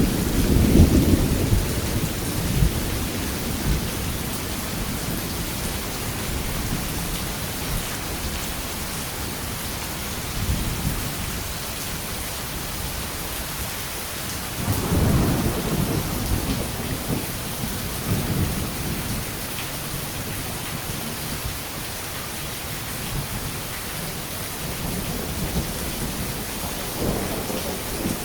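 Steady rain falling, with rolling thunder: a rumble at the start that fades over the first few seconds, another about halfway through, and a softer one near the end.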